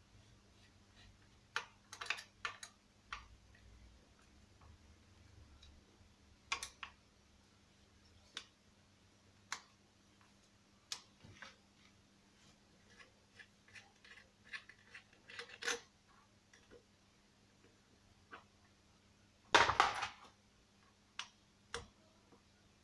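Scattered clicks, taps and light metallic clinks from small tools and chainsaw engine parts being handled during crankcase disassembly, with a louder clatter a little before the end.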